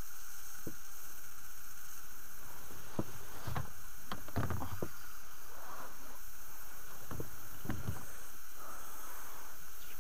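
Irregular dull knocks and water splashing around a small boat as a hooked pike is played towards a landing net, with a cluster of knocks near the middle. A steady hiss runs underneath.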